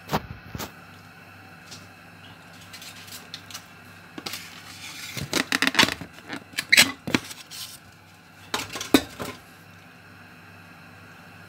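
Metal kitchenware clinking and clattering against a stainless steel cooking pot in a few short bursts, the busiest about halfway through.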